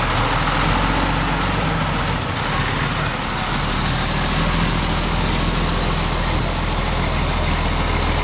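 Diesel engine of a semi truck hauling a tanker trailer, running steadily as the truck drives slowly past at close range, with a fire engine's engine following behind.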